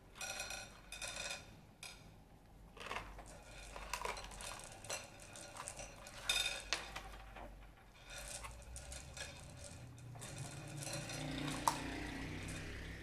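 Small hard candies rattling inside cardboard boxes and clicking onto a tabletop as they are shaken out, in repeated bursts of clatter.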